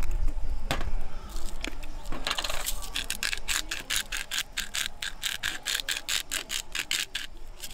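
A few separate knocks, then from about three seconds in a fast, even run of sharp mechanical clicks, about six a second, like a ratchet being worked.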